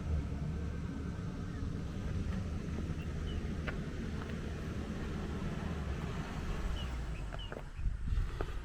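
WOLF JX45H backhoe loader's engine running steadily, with a few faint clicks.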